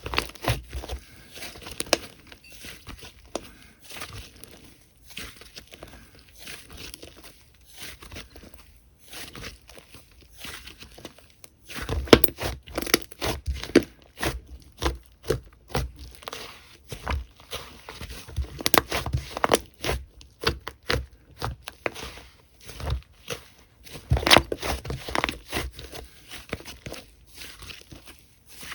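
Slime being squeezed, poked and stretched by hand, giving irregular crackling and popping clicks that come thicker for stretches partway through and again near the end.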